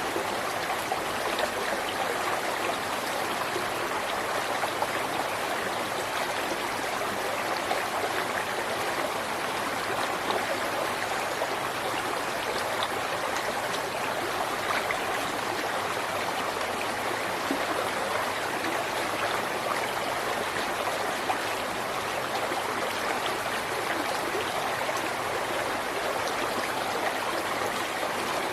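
River water running over rocks: a steady, even rush with small splashes and gurgles flickering through it.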